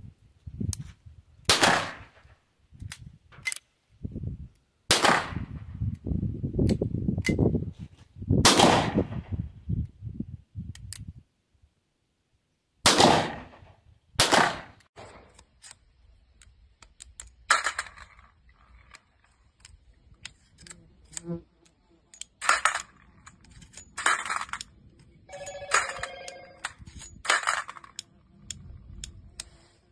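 A Colt Open Top revolver in .38 Special fires five shots a few seconds apart, each with a sharp crack and echo, with lighter hammer clicks between them. In the second half, the empties are ejected one at a time: small metallic clicks and spent brass cases dropping and ringing in a wire basket.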